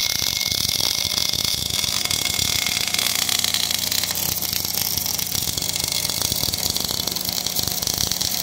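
Automatic bore welder laying a MIG weld inside a worn pin bore: a steady crackling hiss from the arc, with a low machine hum underneath.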